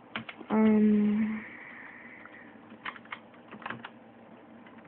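Computer keyboard keys clicking in scattered keystrokes as a password is typed. About half a second in, a voice hums a short steady note, the loudest sound.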